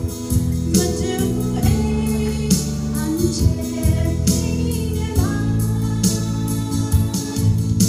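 A woman singing a song into a microphone over an amplified accompaniment of held chords with a steady beat.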